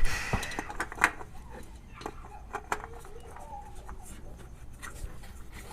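Scattered light clicks and scrapes as a new spin-on oil filter is threaded onto its mount by hand, with a sharper knock about a second in.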